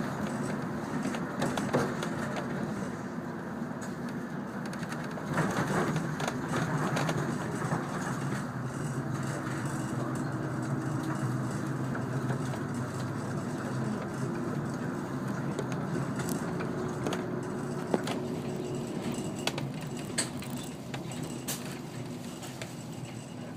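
Airport apron bus driving, heard from inside the cabin: steady engine and road noise with scattered clicks and rattles.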